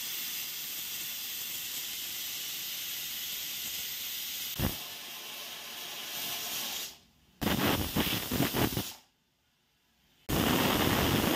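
Prestige pressure cooker venting steam through its weight valve, the 'whistle' that shows it is up to pressure with the dal cooking inside: a steady hiss. Near the end it gives a shorter pulsing burst, falls silent for about a second, then hisses steadily again.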